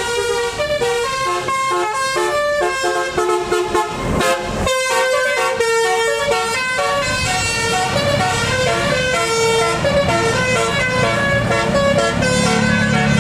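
Bus telolet horn playing a quick tune of short stepped notes, with a brief rush of noise about four seconds in. A deep bus engine rumble grows in near the end.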